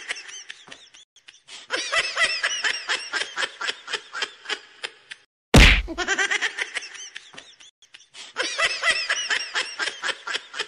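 Looped comedy sound effect: a burst of rapid, high-pitched laughter, cut about halfway through by a sharp whack, after which the same laughter starts again.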